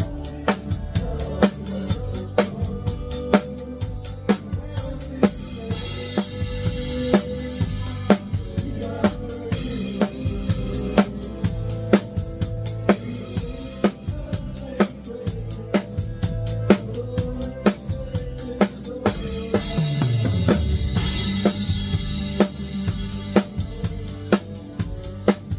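Drum kit played live with Ahead Crossroads XRS synthetic drumsticks: sharp snare and kick strikes on a steady beat, with cymbal wash a few times, over a band playing underneath. A low bass note slides down about twenty seconds in.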